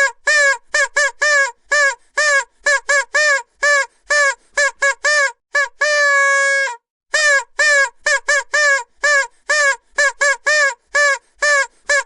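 Vuvuzela blown in a fast string of short toots on one note, each with a slight upward scoop at the start, and one longer held blast about halfway through.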